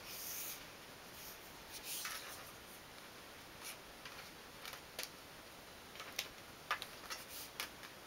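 Faint rustling and crinkling of a long paper strip being handled and bent, with a few sharp crackles and clicks, the loudest near the end.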